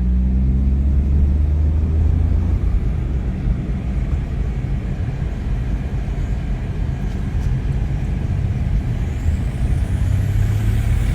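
Vehicle running at road speed: a steady low engine drone with road and wind rumble.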